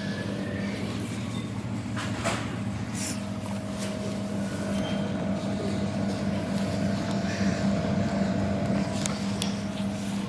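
A machine running with a steady electrical hum and a constant low tone, with a few light clicks over it.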